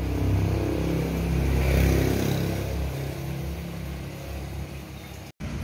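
Suzuki Karimun Estilo's 1.1-litre fuel-injected engine running, swelling to its loudest about two seconds in and then easing back.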